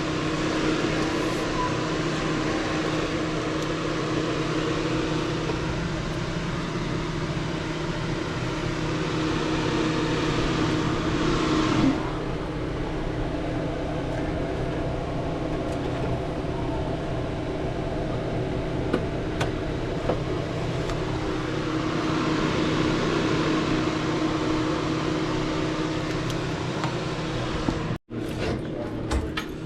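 A machine running with a steady hum under a rushing, fan-like hiss; the hiss drops away about twelve seconds in, and the sound cuts out for an instant near the end.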